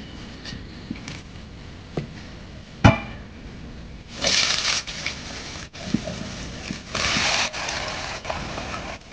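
Cooking at a stove: a sharp clank of a metal pot about three seconds in, a few lighter knocks, and two short bursts of sizzling from frying in hot oil, one just after four seconds and one around seven seconds.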